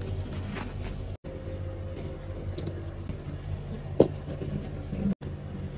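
A steady low hum with a single short click about four seconds in; the sound cuts out for an instant twice.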